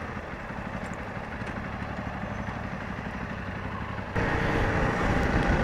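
Honda CRF250 Rally's single-cylinder engine running at low speed in city traffic as the bike slows to a stop. About four seconds in, the sound abruptly becomes louder.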